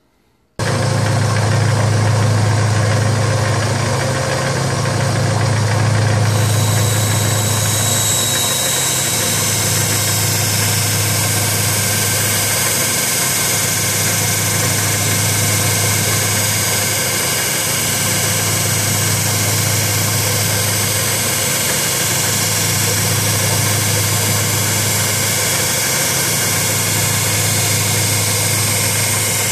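1x30 belt sander running with a steady motor hum, starting abruptly about half a second in. From about six seconds in a steel sword blade is held to the belt, adding a grinding hiss as its blunted 1–2 mm edge is ground down.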